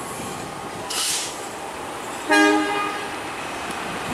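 CC201 diesel-electric locomotive's horn giving one short blast about two seconds in, a level multi-tone chord, sounded as the train approaches the station. A brief hiss comes about a second in.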